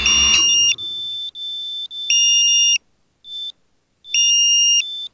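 FPV racing quad's onboard electronic beeper sounding a pattern of high beeps in two or three pitches, some short and some held about half a second, with gaps between. The motors have stopped and the quad is sitting on the ground.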